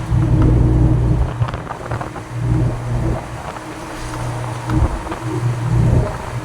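Truck engine running under way, a low drone that swells and dips in loudness every second or two, with a few light rattles.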